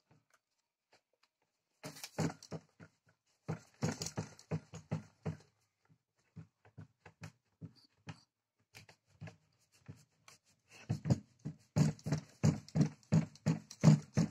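Rapid knocking and rattling from a cardboard seismograph model being shaken on a table, about three knocks a second. Two bouts, the second starting near the end and louder, with a few light taps between them.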